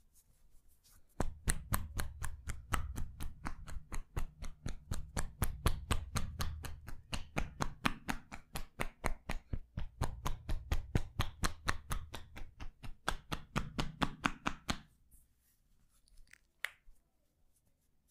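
Rapid, even percussion-massage strikes on a person's back, about four to five a second, starting about a second in and stopping near the end. Each strike is a sharp slap with a dull thud of the body under it.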